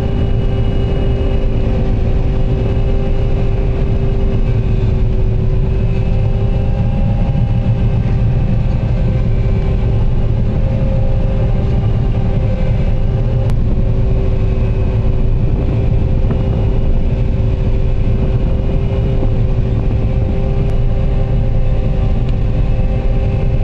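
Combine harvester running steadily under load: a constant deep engine rumble with a few steady humming tones from the machine, unchanging throughout.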